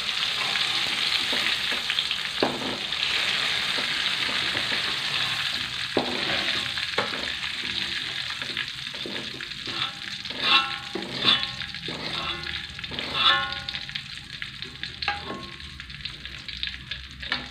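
Hot oil sizzling in a wok just after the flame is turned off, its hiss fading slowly. A metal ladle scrapes and knocks against the wok while the fried chillies and belacan are scooped out, with a run of sharp clinks that ring briefly in the second half.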